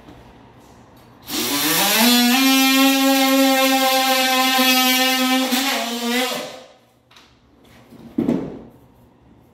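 Handheld cordless drill spinning up to speed, running steadily for about five seconds, then winding down; a short second burst of the motor follows near the end.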